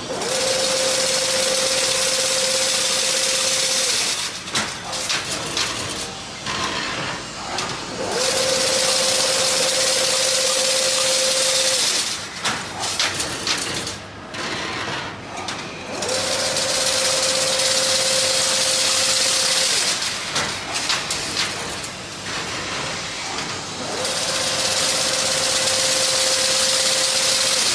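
Automatic single-wire chain link fence machine running through its weaving cycle: about four seconds of steady motor whine with a held tone, then about four seconds of clicking and clattering, repeating every eight seconds or so.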